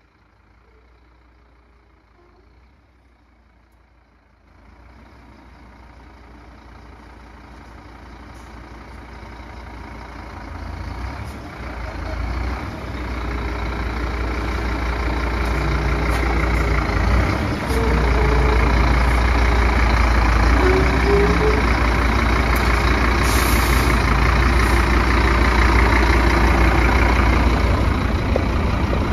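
Scania P230 truck's diesel engine idling steadily. It is faint at first and grows steadily louder over the first eighteen seconds or so, then is heard up close from inside the cab.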